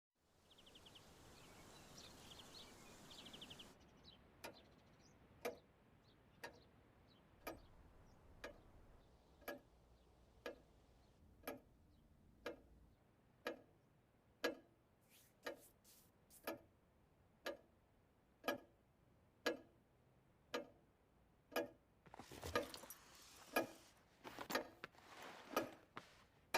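A clock ticking steadily, about once a second. It follows a few seconds of hiss with faint chirps, and near the end gives way to busier clicking and rustling.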